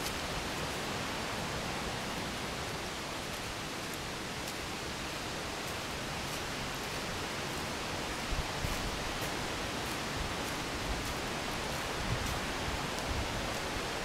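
Footsteps crunching through dry fallen leaves on a mountain trail, heard as faint crackles every second or so. They sit over a steady rushing hiss, with a few soft low thumps near the end.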